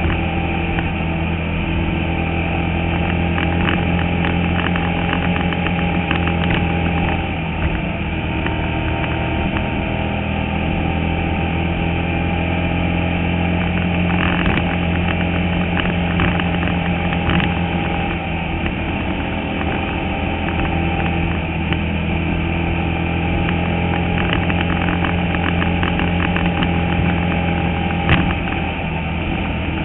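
Onboard sound of a Bandolero race car's small single-cylinder Briggs & Stratton engine running hard at racing speed, its pitch easing and picking up slightly now and then, with scattered rattles from the car and one sharper knock near the end.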